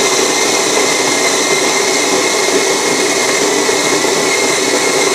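Capresso electric coffee grinder running steadily as it grinds coffee beans: a loud, even motor whir with a steady whine.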